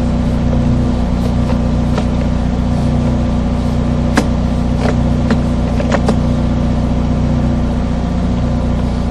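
Sewer jetter's engine running steadily, with a few sharp clicks and knocks over it.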